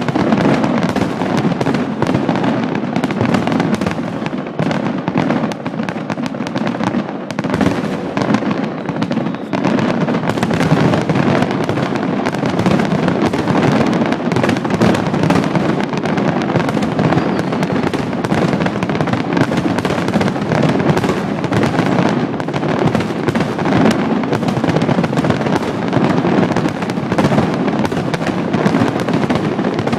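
Fireworks finale: a dense, unbroken barrage of bangs and crackles, slightly less loud for a few seconds near the start.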